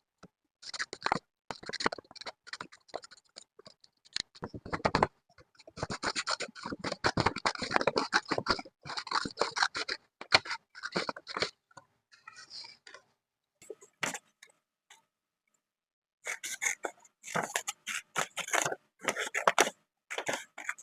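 Scrapbooking paper being handled: irregular scratching, scraping and rustling of paper, in uneven bursts with a few short silent gaps.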